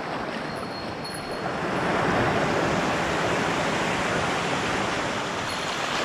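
Shallow stream running over smooth bedrock: a steady wash of flowing water that grows louder about two seconds in.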